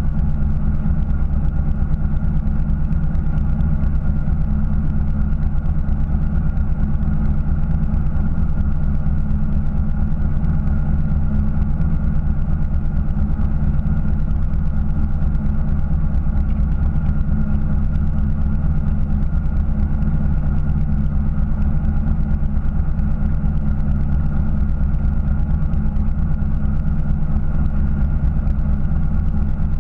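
Fishing boat's engine idling, a steady low hum that stays even throughout.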